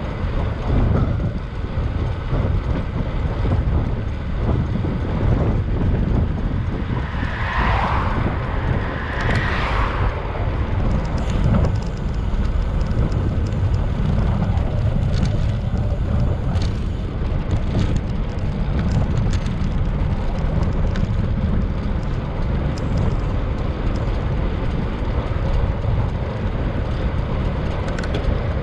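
Wind buffeting the microphone of a moving bicycle, a steady deep rumble of rushing air.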